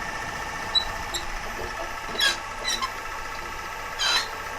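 Wood lathe running with a steady hum while a gouge cuts a spinning lignum vitae blank, giving about five short, high squeaks as the tool bites, the loudest about two and four seconds in.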